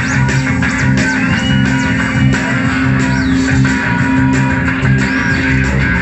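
A live band playing: electric guitars and bass over a steady, repeating low pulse, with high gliding tones drifting above.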